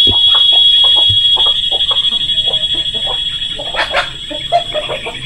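Steady, high-pitched insect chorus, with scattered short clicks and rustles and one sharper knock about four seconds in.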